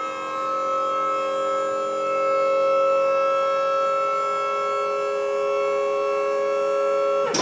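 A loud, steady electronic hum made of several held tones at once, not rising or falling. Near the end it drops briefly in pitch and breaks into a burst of hiss that dies away.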